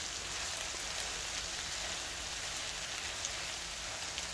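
Potato, onion and egg mixture sizzling steadily as it fries in a pan, with a spatula stirring through it.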